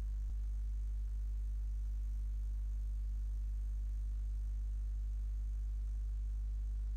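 Steady low electrical mains hum with a faint hiss underneath, unchanging throughout.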